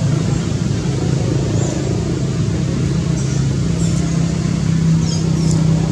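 A steady low engine hum, like a motor vehicle running nearby, rising slightly in pitch about halfway through, with a few short, high chirps over it.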